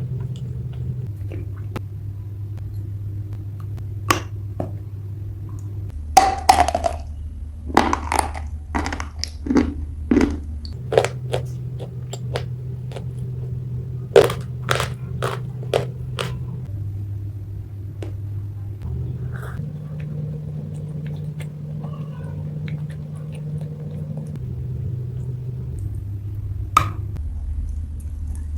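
Gray gachi clay being bitten and chewed close to the microphone: scattered sharp crunches, thickest in the middle stretch, over a steady low hum that steps up and down in pitch every few seconds.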